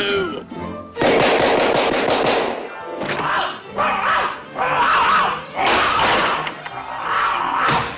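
Cartoon orchestral score with slapstick sound effects: a sudden loud thump about a second in, then busy chase music in swells.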